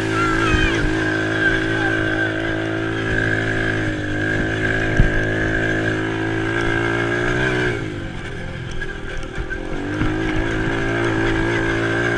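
Small ATV engine running under throttle, its pitch rising and falling as the rider works the throttle, with a marked drop and recovery about eight seconds in. A single sharp knock sounds about five seconds in.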